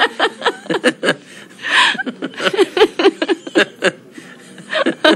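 A woman laughing in a long string of short bursts.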